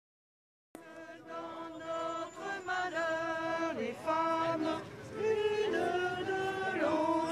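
Voices singing a slow, chant-like melody of held notes that slide from one pitch to the next, beginning abruptly just under a second in after silence.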